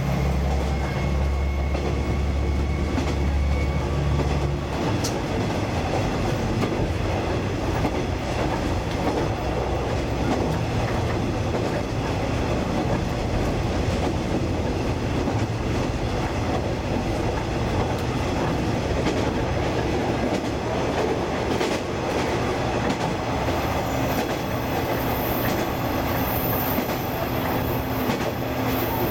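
Diesel railcar's engine running while the train stands at a station: a steady low hum that turns into a fuller, rougher running noise about five seconds in.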